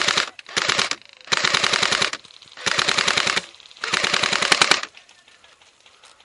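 Airsoft guns firing full-auto, five rapid bursts of clicking shots in quick succession, each lasting well under a second to about a second, the last ending near the end.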